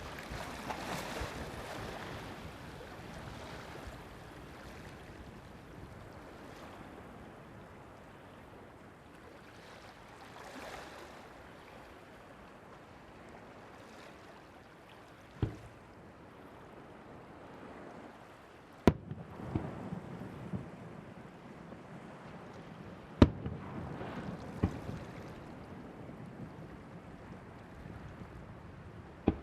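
Fireworks shells bursting over the sea, heard as a few sharp bangs in the second half, two of them much louder than the rest, over steady surf and wind rumble on the microphone.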